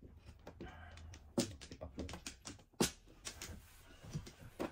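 Mahjong tiles clacking as they are discarded and handled on the table: a few sharp clicks, the loudest three about a second and a half apart.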